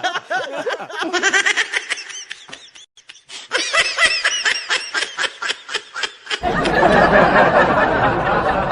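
A person laughing hard in quick repeated bursts, in two fits with a short break between them. About six seconds in, a louder, dense mix of noise with music cuts in suddenly.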